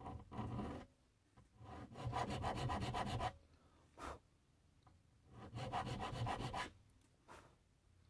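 Round chainsaw file rasping into a soft brass knife liner, starting a rounded notch for decorative file work. The quick strokes come in about three spells with short pauses between.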